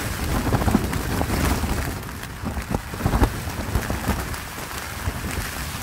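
Wind-driven rain beating on the walls of an MSR Access 2 tent, heard from inside, as a dense steady rush with sharp snaps scattered through it.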